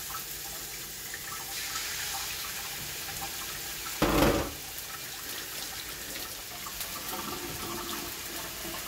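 Chicken breasts sizzling steadily in hot olive oil in a frying pan, with one loud thump about four seconds in as the second breast goes in.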